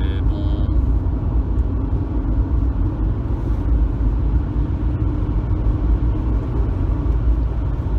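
Steady low rumble of engine and road noise inside the cabin of a moving Citroën Evasion 2.0 HDi diesel minivan.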